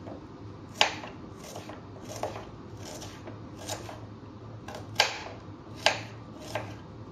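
Knife slicing a red onion on a wooden chopping board: a crisp cut ending in a tap on the board, about nine times at a slightly uneven pace, a few strokes louder than the rest.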